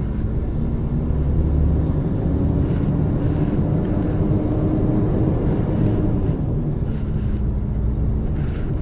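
Mercedes-Benz V8 truck engine heard from inside the cab, pulling steadily through a wide right turn. Its pitch rises over the first few seconds and falls back about six seconds in.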